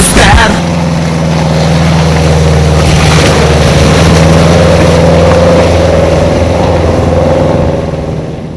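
Subaru Forester's flat-four engine running hard under load as the car ploughs through deep mud, its note holding steady, rising a little a few seconds in, then fading near the end.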